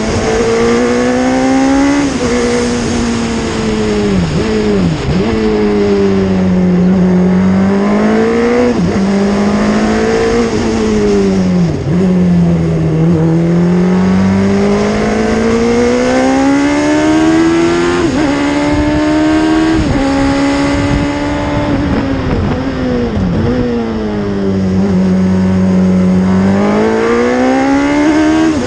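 Hayward open-wheel race car's engine heard onboard at racing speed, its pitch climbing and falling again and again through the corners, with several sudden brief dips.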